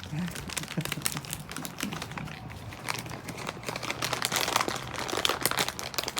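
Plastic packaging crinkling and rustling as it is handled, a dense run of irregular crackles.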